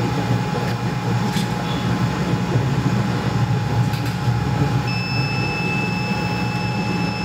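ZMR 5860 BGA rework station running, its blowers and fans giving a steady hum with a thin whine held throughout. About five seconds in, the station's buzzer starts a steady high beep: the desoldering profile has finished and the processor is ready to be lifted off.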